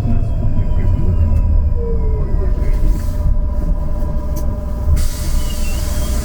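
Trolleybus running: a steady low rumble, with the electric traction drive's whine falling in pitch over the first couple of seconds. A steady hiss starts about five seconds in.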